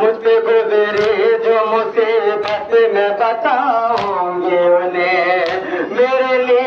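Men singing a noha, a Shia Muharram lament in Urdu, with matam: open-hand chest beats about once a second keeping the beat.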